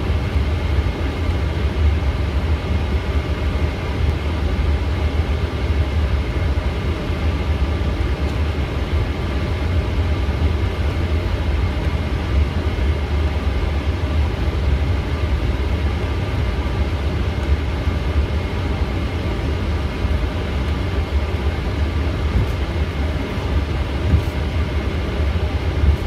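Boeing 777 taxiing with its jet engines at idle, heard from inside the aircraft: a steady low rumble with a faint, even whine.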